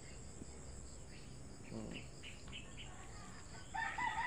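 Crickets chirring steadily and high-pitched. Near the end a rooster starts a long crow, the loudest sound here.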